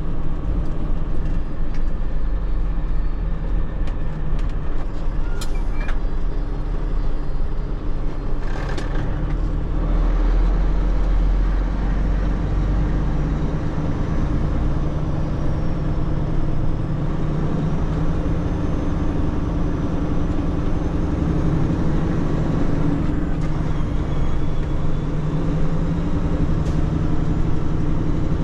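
Heavy tanker truck's diesel engine running with steady road rumble, heard from inside the cab while driving. Two short sharp clicks sound about five and nine seconds in.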